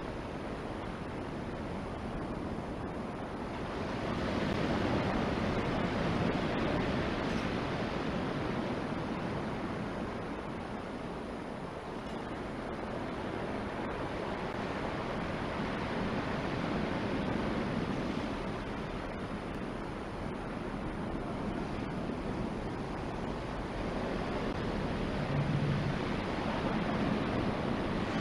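Ocean surf breaking on the shore, a steady wash of noise that swells and fades every ten seconds or so, with some wind on the microphone.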